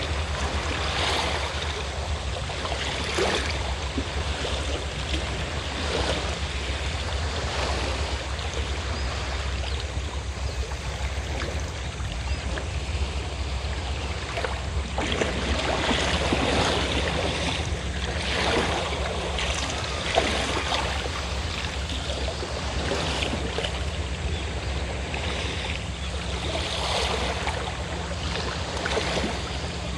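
Waves washing onto the shore in repeated surges every few seconds, over a steady low drone from a fishing boat's engine.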